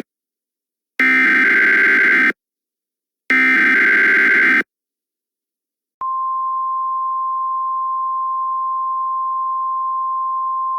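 Emergency Alert System header: two short, harsh, warbling bursts of digital data about a second apart. After a short silence, a steady single-pitch attention tone starts about six seconds in.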